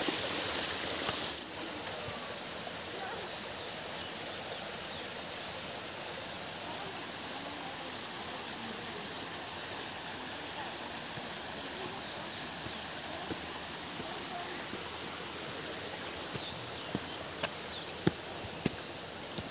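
Steady rushing of a forest stream, a little louder for the first second or so, with a few sharp knocks near the end.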